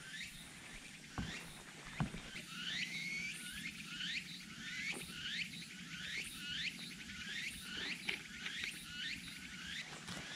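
A run of short, high chirps, each sweeping downward, repeated about twice a second from a small wild creature, with two soft thumps in the first couple of seconds.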